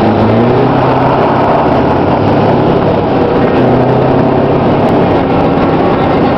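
Heavy truck's diesel engine running steadily at speed, heard from outside the cab with wind and road rush over it.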